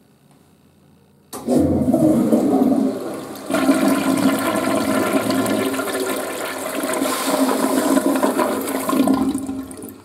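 Western-style toilet flushing: the water comes in suddenly about a second in and rushes and swirls down the bowl. It eases briefly, surges again, then tails off near the end.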